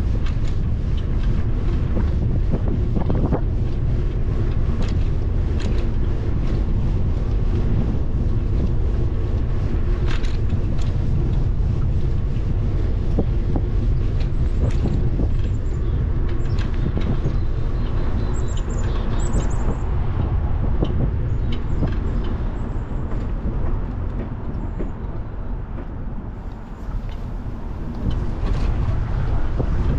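Wind buffeting the microphone and low road rumble while riding a bicycle, with frequent small knocks and rattles from the bike over the road surface. The noise eases for a couple of seconds near the end, then picks up again.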